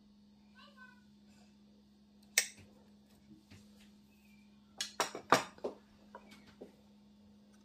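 A metal spoon and white enamel serving dishes clinking as they are handled and set down on the table. One sharp clink comes a couple of seconds in, then a quick cluster of clinks and knocks, then a few lighter taps.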